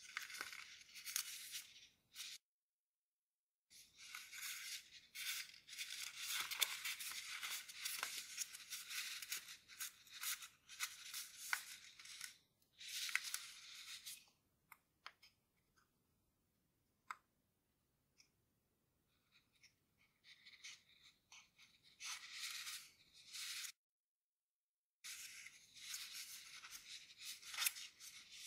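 Grainy origami paper being folded and creased by hand: bursts of rustling and crinkling with scattered small clicks, broken by short silent pauses.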